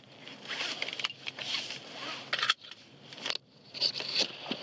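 Clothing rustling and scraping against a body-worn camera's microphone as the wearer moves, with a few sharp clicks and two brief cut-outs, about two and a half and three and a half seconds in.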